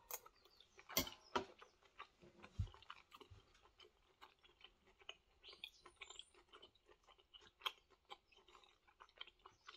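A person chewing a mouthful of rare steak: faint, irregular short clicks and smacks, with a louder knock about a second in.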